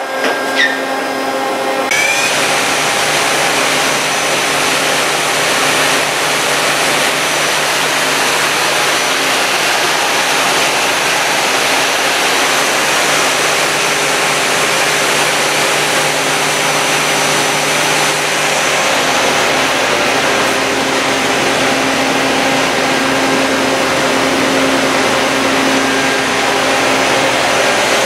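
Doosan MX2500 LST CNC lathe spindle spinning its chuck at speed: a steady, loud whirring hiss with faint steady hum tones. It starts abruptly about two seconds in, with a short rising whine.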